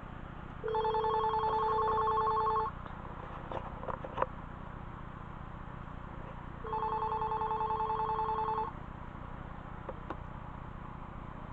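BellSouth 1200 cordless phone's electronic ringer warbling, two rings of about two seconds each, the second starting about six seconds after the first, in the standard incoming-call cadence. A few faint clicks fall between the rings.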